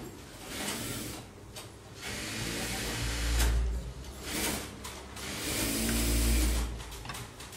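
Electric sewing machine running in two short bursts of about a second each, the second a couple of seconds after the first, with a low motor hum.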